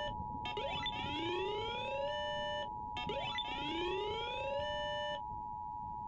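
Emergency Alert System attention signal, a steady two-note electronic alarm tone, heralding a tornado warning broadcast. Over it, a rising electronic sweep of several tones climbs and then holds, twice.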